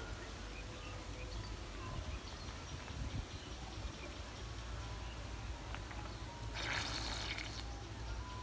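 Cast net being drawn in through shallow pond water, with a burst of splashing and water streaming off the mesh about seven seconds in as it is lifted clear.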